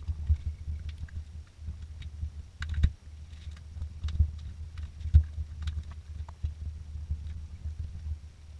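Scattered small clicks and taps from hands and tools working on an ATV's wiring harness, over a steady low rumble. The sharpest knocks come about three seconds and five seconds in.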